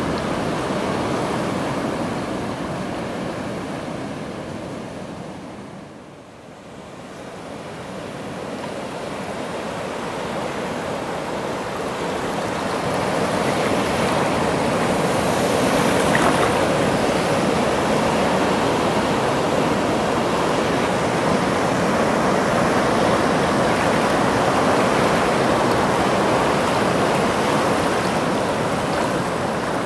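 Sea surf breaking and washing over a rocky shore, a steady rushing of water that fades about six seconds in and then swells back up.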